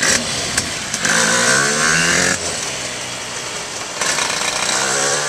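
Shifter kart's two-stroke engine revving in two bursts: the pitch climbs from about a second in and cuts off sharply, then rises again near the end.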